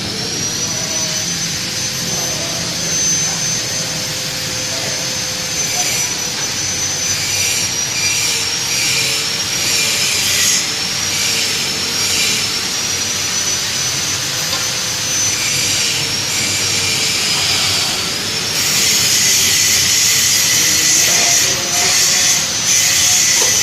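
Electric power tool motor running with a high whine over a hissing noise; the pitch holds steady, then wavers and dips repeatedly as the tool is loaded against the work, and the hiss grows louder near the end.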